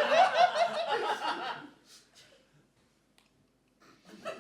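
People laughing in quick repeated bursts that die away about two seconds in, then a fresh burst of laughter near the end.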